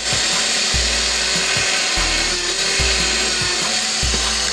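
Benchtop drill press running, its small bit drilling through thin plywood with a steady whir and rasp.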